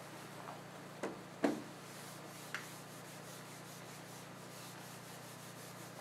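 Whiteboard eraser rubbing marker off a whiteboard in repeated strokes, after three sharp knocks between about one and two and a half seconds in.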